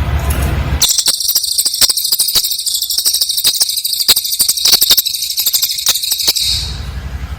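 Cililin bird singing a dense, shrill, very rapid high-pitched chattering trill that starts about a second in and stops near the end. A low pulsing buzz is heard before it starts and again after it stops.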